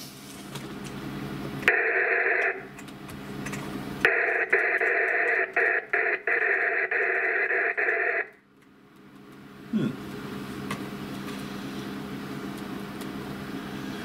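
Buzzing noise from an amateur radio transceiver's speaker, confined to the radio's narrow audio band, generated while coax connections are being changed. It comes in two bursts: a short one about two seconds in and a longer one from about four to eight seconds in, broken by brief dropouts and clicks.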